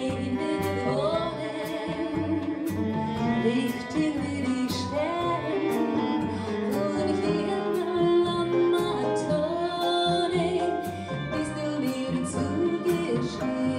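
A woman singing a melody with a klezmer band accompanying her on double bass, clarinet and drums, over a steady beat.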